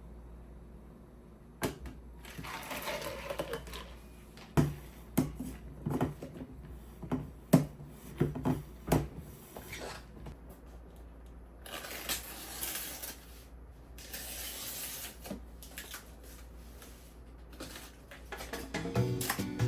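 Parcels being unpacked by hand: a run of knocks and clicks as boxes and items are handled, with two stretches of rustling packaging partway through.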